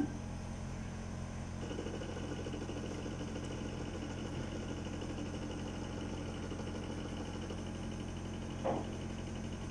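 Sirona inLab MC XL dental milling unit running through its calibration cycle: a steady machine hum, with a faint high whine coming in about a second and a half in and a short rising whir near the end.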